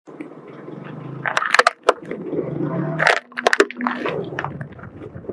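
Crunchy objects cracking and popping as a car wheel rolls over and crushes them: two clusters of sharp cracks, one about one and a half seconds in and one about three seconds in, over a low steady rumble.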